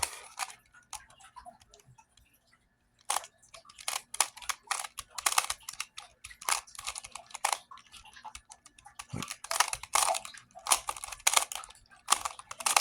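Plastic twisty puzzle being turned quickly during a solve: rapid, irregular clicking of its layers snapping round, starting about three seconds in after a near-quiet start.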